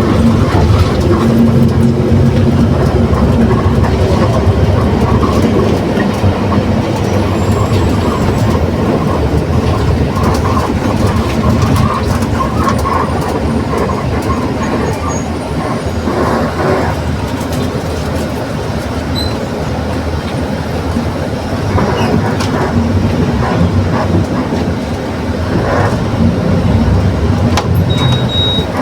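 Mercedes-Benz OF 1721 BlueTec 6 city bus under way, its running gear and engine loud and steady, with the differential growling: a steady droning tone that fades a few seconds in and comes back near the end. Scattered rattles and clicks run throughout.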